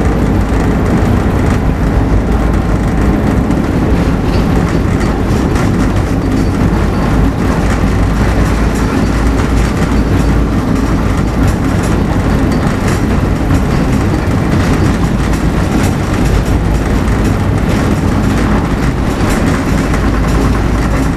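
Voith Schneider tug's diesel engine running under load on a towline, a steady loud rumble.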